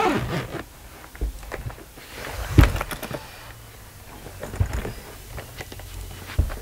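Handling noises from a Victorinox Tourbach 22 carry-on suitcase as it is worked open to its expanded size: scattered clicks and knocks, with a heavy thump about two and a half seconds in.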